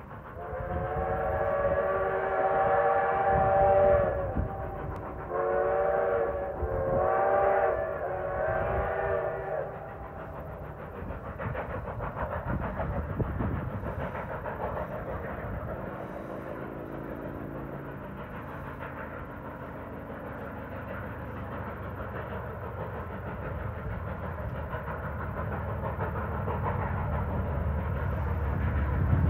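Steam locomotive whistle blowing several blasts, the first about four seconds long. After that the narrow-gauge steam locomotive's exhaust chuffs steadily as the train works along the line.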